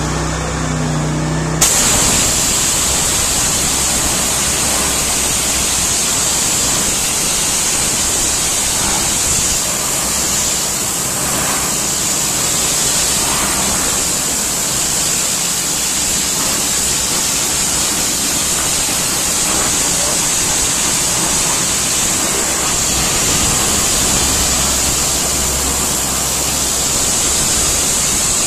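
Petrol-engine pressure washer with a Honda GX690 engine running. The lance trigger opens about two seconds in, and a 7000 PSI turbo-nozzle water jet hisses steadily against a wall, stripping paint, with the engine's low drone underneath.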